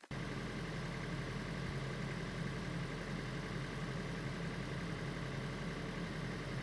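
A vehicle engine running steadily under a steady hiss, cutting in abruptly.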